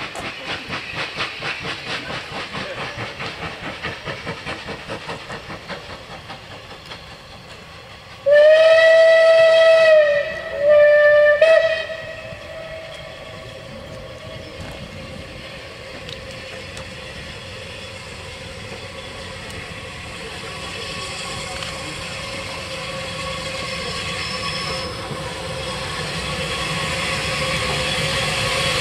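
Steam locomotive whistle, loud: one long blast and then a shorter one. Before it, a rhythmic chuffing fades away. After it, the steady rumble of an approaching steam train builds towards the end.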